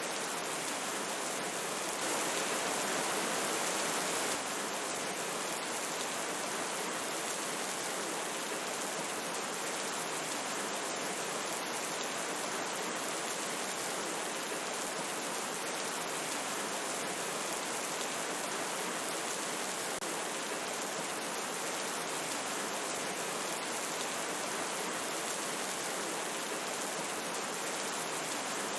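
Steady rushing water of a river mixed with rainfall, an even, unbroken noise that swells slightly about two seconds in and settles back after a couple of seconds.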